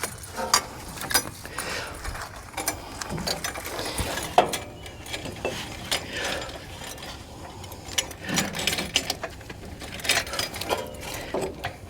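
Irregular metal clicks, clanks and rattles from the sprayer pump's drive shaft being handled and fitted to the tractor, with no engine running.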